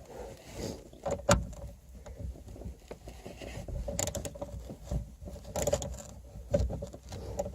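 Torx screwdriver working at a speaker mounting screw, with scattered sharp clicks and short scrapes of metal on metal.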